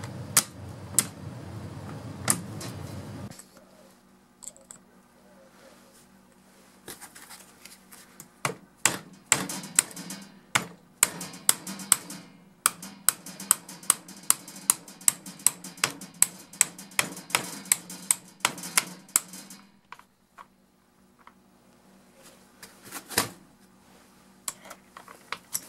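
Sharp metallic clicks and taps, two or three a second, as a bent steel wire pokes and scrapes at the spring-loaded detent pin in a DeWalt DCF899 impact wrench's square anvil to push the pin out. A faint steady hum runs underneath.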